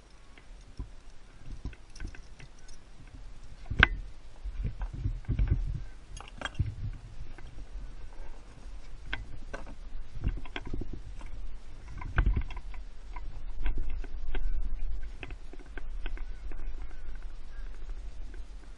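Scattered knocks and clicks of handling in a gyrocopter's open cockpit over gusts of wind rumbling on the microphone, with no engine running.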